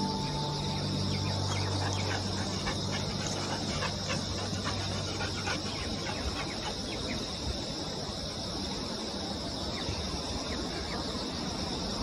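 Insects shrilling steadily in one high, even band, with many short scattered chirps and clicks over it. A held music chord fades out over the first couple of seconds.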